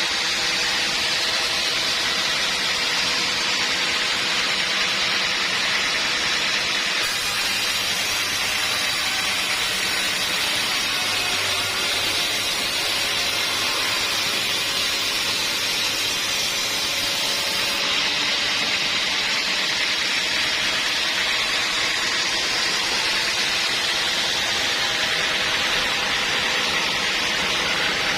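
Sawmill machinery running with a steady, even hiss. The hiss grows brighter, over a low hum, for about ten seconds in the middle.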